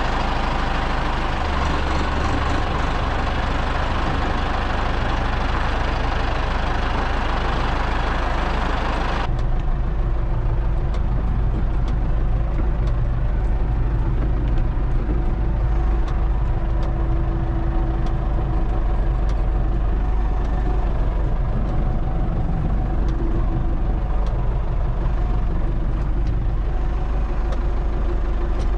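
Ford 5600 tractor's three-cylinder diesel engine running steadily, heard from the cab as the tractor is driven. About nine seconds in, the sound abruptly turns duller once the cab is closed.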